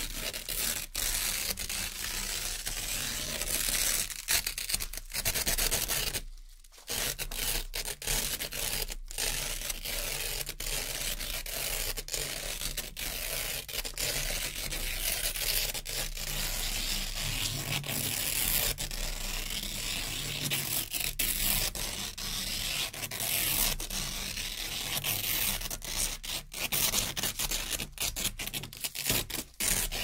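Velcro hook-and-loop strips being peeled apart, a near-continuous ripping with a short break about six seconds in.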